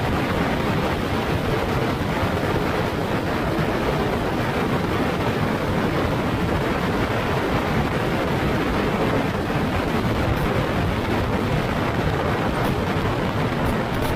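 Steady rush of wind and road noise from a moving vehicle on the ride, with a few faint ticks near the end.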